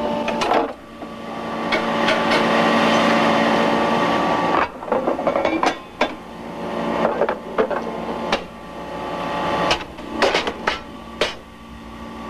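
Hockey-puck molding press and oven line running with a steady machine hum. A rushing hiss swells over the first few seconds, then a run of sharp metallic clanks and knocks follows as a baked batch of rubber pucks comes out of the molds.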